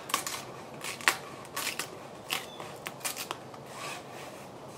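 Teflon release film being peeled off the cured epoxy of a fiberglass-wrapped rocket body tube, crackling and crinkling in irregular short bursts.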